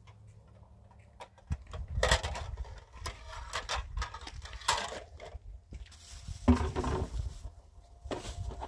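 Plastic plates and dishes clattering and knocking together as a small child handles them, in irregular bursts with one sharper knock about six and a half seconds in.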